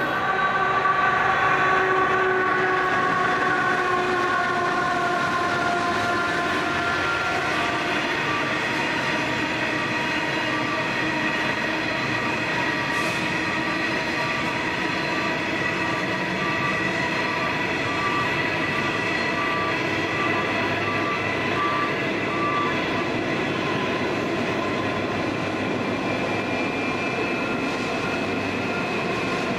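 Two coal trains passing on adjacent tracks. Empty coal hopper wagons roll past at speed with a steady rumble and several steady whining tones, while the diesel locomotives of a slow-moving loaded coal train draw level.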